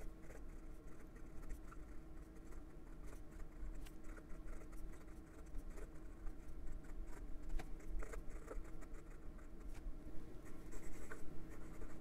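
Broad cursive italic fountain pen nib writing in cursive on notebook paper: a faint, irregular run of soft scratches and small ticks as the strokes are made.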